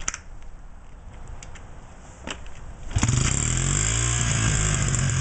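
Honda XR70 dirt bike's small four-stroke single-cylinder engine being kick-started: a couple of sharp clicks from the kick lever, then the engine catches about three seconds in and runs steadily with a slight rise and fall in pitch.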